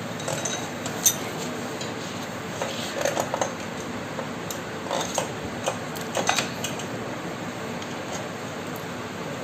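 Socket wrench on a long steel extension clinking and clicking against motorcycle cylinder-head bolts as they are run down and tightened: scattered metal clinks and short runs of quick clicks.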